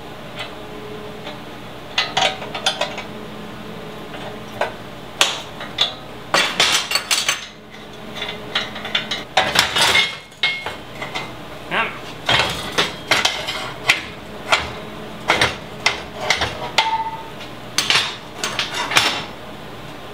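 Steel wrenches clanking and clinking, irregularly, against a steel welding table and a bolt, with a brief metallic ring now and then. The bolt is being worked out of a freshly welded control-arm mount; the welding heat has pulled the mount's tabs in and clamped the bolt tight.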